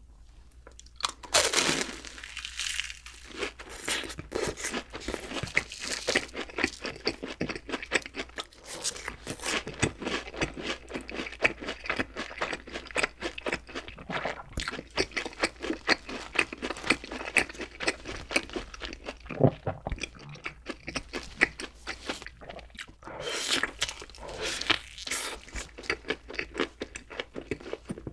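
Close-miked eating sounds: crisp crunching bites and wet chewing of fast food, in an irregular run of crackles. Louder crunching bites come about a second in and again near the end.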